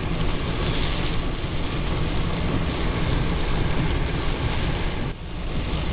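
Steady rumble and road noise inside a moving vehicle's cabin, heavy in the low end, easing briefly about five seconds in.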